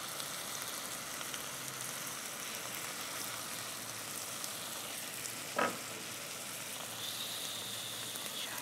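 Minced meat sizzling steadily as it fries in a pan, with one short knock a little past halfway.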